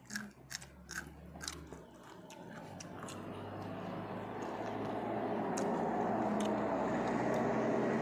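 Crunchy chewing and biting of raw vegetables for the first couple of seconds. Then a steady rushing noise swells over about four seconds and holds, louder than the chewing.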